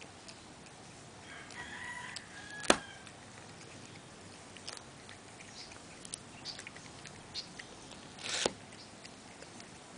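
Cat biting and chewing cat grass: scattered small crunching clicks, one sharp click about three seconds in, and a short rustle of grass blades near the end.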